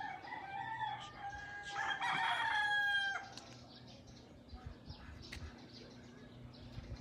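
A rooster crowing once: one long call of about three seconds, loudest near its end, then faint background sounds.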